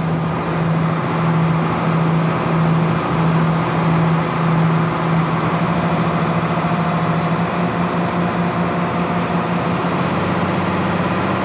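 A riverboat's engine running steadily: a constant low drone over the rush of wind and water as the boat moves along.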